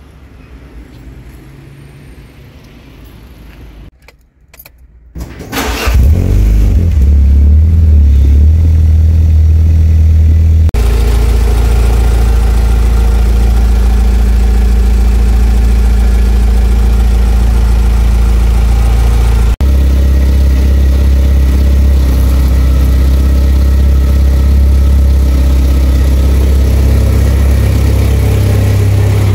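Fiat Marea Turbo's five-cylinder engine through a nearly straight-through exhaust. It starts up about five to six seconds in, then runs loud and steady at idle, with the tone changing abruptly twice, around 11 and 20 seconds in, where clips are cut together.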